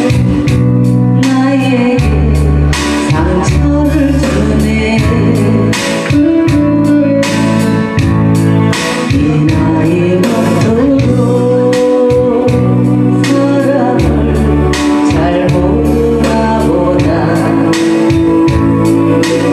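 A woman singing a Korean trot ballad into a microphone over amplified backing music with a steady beat.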